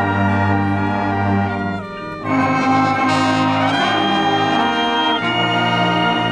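Marching band brass playing held chords, dropping briefly about two seconds in before coming back in loud, with another chord change near the end.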